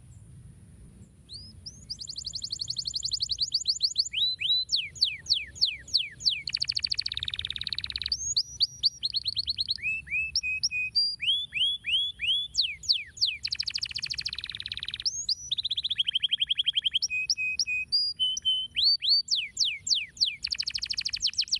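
Domestic canary singing: fast trills of repeated down-sweeping notes that switch to a new phrase every second or two, with two buzzy, lower rolls about a third and two-thirds of the way in. The song starts after a brief pause at the very beginning.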